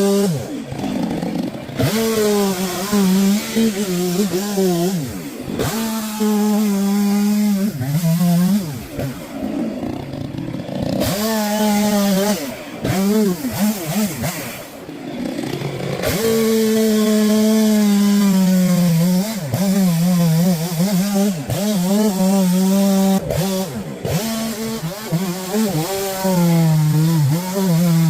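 Chainsaw running at high revs, its note holding steady and then sagging and recovering again and again as the chain loads up in the cut. The sound breaks off abruptly several times.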